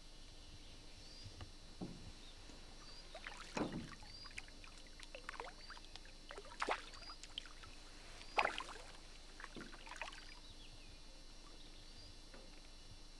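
A hooked fish fighting at the surface beside the boat, splashing and swirling in a few short bursts, the biggest splashes about three and a half, six and a half and eight and a half seconds in.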